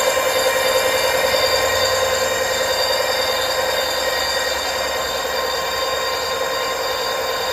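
A 48V 1000W brushless gearless front hub motor spinning an unloaded 24-inch wheel, giving a steady electric whine with several pitches at once. It eases off slightly about halfway through.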